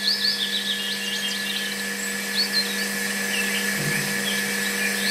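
Small DC electric motor on a miniature model tractor running at a steady speed with a high, even whine, driving a rubber belt to a miniature water pump. Birds chirp behind it.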